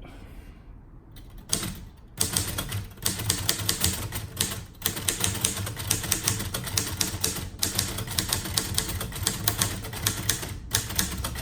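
Late-1950s Royal Quiet De Luxe manual portable typewriter being typed on fast: a dense run of key strikes that starts about two seconds in, with two short breaks.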